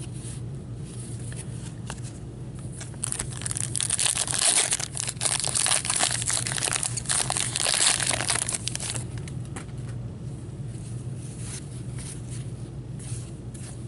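A pack of 2015-16 Upper Deck Champs hockey cards being torn open and handled with gloved hands: the wrapper crinkles and tears in a dense run from about three seconds in to about nine seconds, then quieter rustling of the cards.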